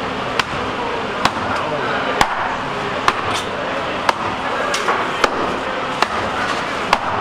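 Fish-market bustle of background voices, with sharp chopping knocks on a cutting board about once a second.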